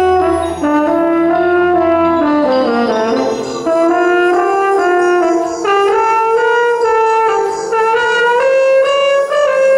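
French horn playing a line of quick changing notes over an electronic tape accompaniment. A low drone in the accompaniment drops out a little over two seconds in.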